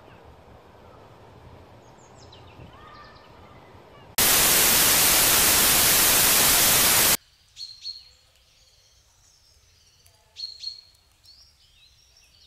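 A loud burst of TV-style static hiss, lasting about three seconds and cutting in and off abruptly, set between faint outdoor ambience with a few short, high bird chirps.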